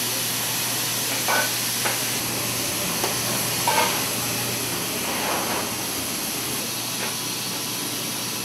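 Steady hiss of kitchen room noise with a low hum underneath, and a few light knocks and clinks between about one and four seconds in.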